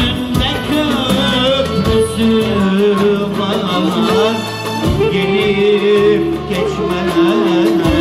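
Turkish folk song in the dağlı style: a man singing an ornamented, sliding melody over an ensemble of violins and plucked string instruments.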